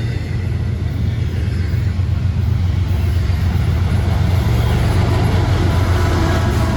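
Freight train passing close by: a loud, steady low rumble that grows slightly louder, with faint steady tones coming in near the end.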